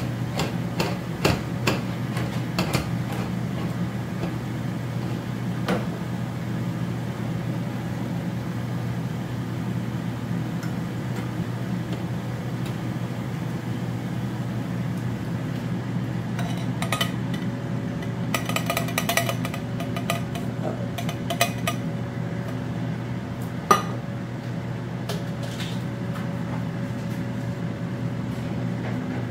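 Kitchen cooking clatter: pots, pans, dishes and utensils knocking and clinking now and then, with a bright run of clinks past the middle and one sharp knock near the end, over a steady low hum.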